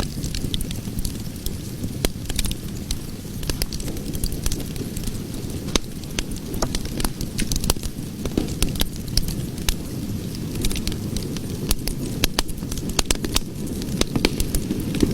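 Cooking fire burning, with a steady low rumble and frequent irregular sharp crackles and pops.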